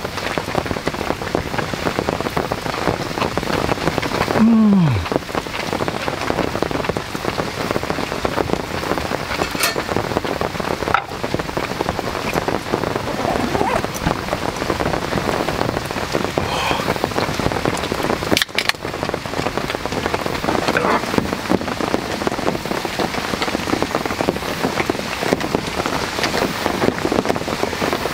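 Heavy rain falling steadily on the tent canvas overhead, a dense even drumming of drops. About four seconds in, a brief voice slides down in pitch.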